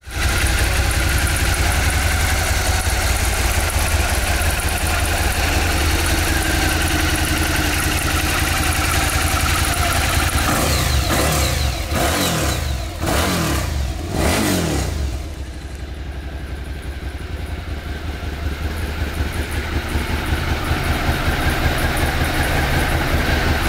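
Suzuki SV650's 645 cc V-twin idling steadily, blipped a few times about halfway through with the revs rising and falling, then settling back to idle.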